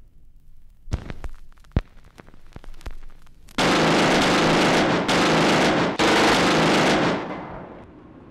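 Machine-gun fire: a few scattered single pops, then about three and a half seconds of continuous automatic fire in three bursts split by two brief gaps, dying away near the end.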